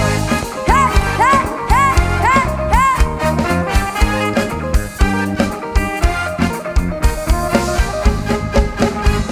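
Instrumental break of a live Isan lam band: a lead instrument plays about five quick swooping, bent notes in the first three seconds over a steady driving beat with bass and drums, after which the full band carries the beat.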